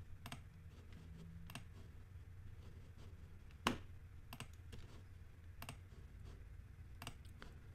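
Scattered computer mouse clicks, about eight over several seconds, the loudest a little past the middle, over a faint steady low hum.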